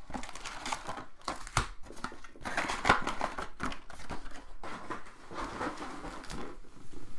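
Trading-card packs and cards being handled: wrappers crinkling and cards rustling, a busy run of quick rustles and clicks.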